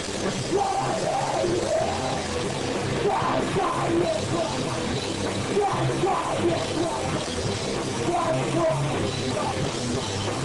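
Rock band playing live, loud and dense: drum kit with cymbals and electric guitars through amplifiers.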